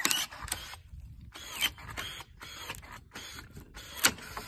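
Long-handled pruner working on a young walnut tree: a string of clicks and short rasping snips, then one sharp, loud snap about four seconds in as the blades cut through a branch.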